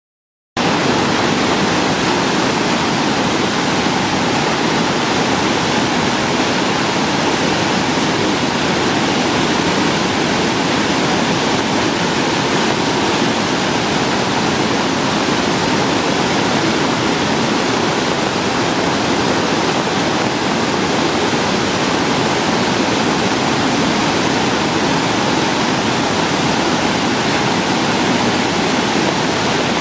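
Floodwater pouring over a dam spillway and crashing into the churning white water below: a loud, steady rush of water from a dam overflowing in flood.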